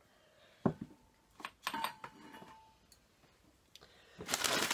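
A few light knocks of ornaments and glassware being handled on a table, one leaving a short ringing tone, then sheets of newspaper packing rustling and crumpling, starting near the end.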